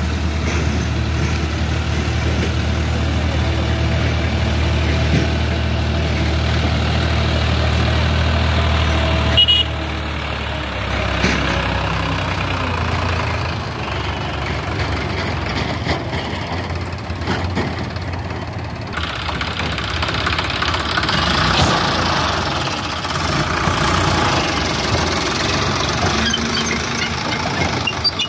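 Sonalika DI-750 tractor's diesel engine running as it hauls a trailer loaded with sand. The sound changes abruptly about nine and a half seconds in and grows noisier and fuller in the second half.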